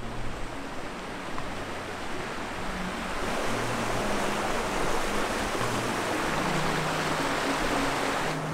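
Rushing water, an even roar that grows louder about three seconds in and drops away sharply near the end, under background music with low sustained notes.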